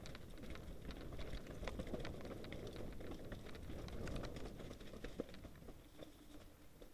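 Specialized Enduro mountain bike rolling down a rough dirt and snow singletrack: a low tyre rumble with frequent clicks and rattles from the bike, easing off near the end.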